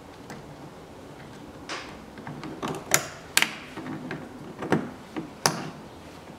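Several sharp clicks and clacks of a hand tool and hose clamp as the clamp is fitted onto the coolant hose at the expansion tank, the loudest ones around the middle.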